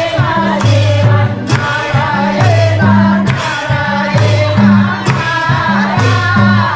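A song with singing over a steady beat and a repeating bass line.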